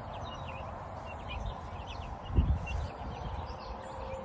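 A flock of meat chickens calling in short, repeated chirps. A single low thump about two and a half seconds in.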